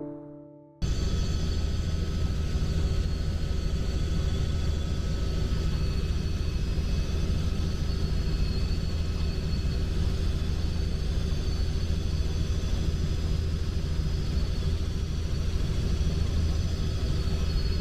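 Helicopter engine and rotor noise heard inside the cabin in flight: a loud, steady drone with a deep rumble and a steady high whine over it. It cuts in suddenly about a second in, as music stops.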